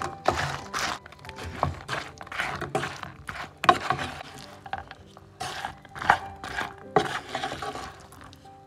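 A spatula stirring and tossing fried fish pieces in sauce in a non-stick pan, making irregular scrapes and knocks. Background music plays throughout.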